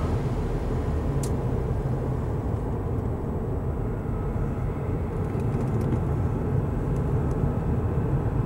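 Steady low rumble of a car's engine and road noise heard inside the cabin while driving, with a faint click about a second in.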